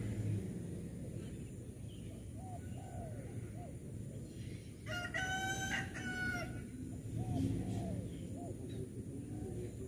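A rooster crows once, about halfway through, a single crow lasting about a second and a half. A steady low rumble runs underneath.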